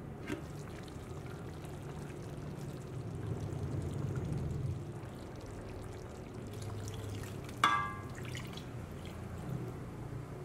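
Coconut milk being poured from a bowl into a stainless steel pan of chicken stew. About three-quarters through there is one sharp, ringing clink, and a light click near the start comes as the glass lid is lifted.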